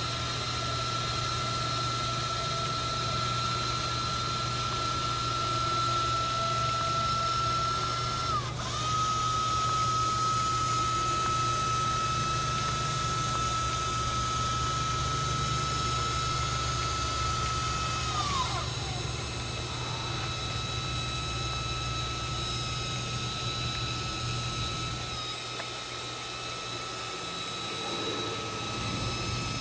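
Electric motor of a powered vehicle transfer seat whining steadily as the seat swings back into the cab and lowers. The whine dips briefly about eight seconds in, winds down about eighteen seconds in, and a fainter whine carries on after.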